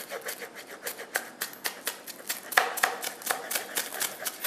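Kitchen knife chopping spring onion on a cutting board: quick, even strokes, about four a second.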